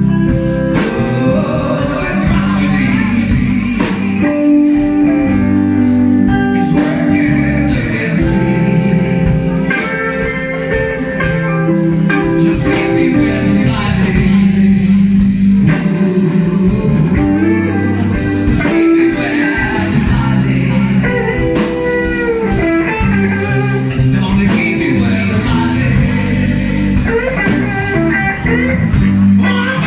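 Live band playing: electric guitars, bass guitar and drum kit, with a woman singing.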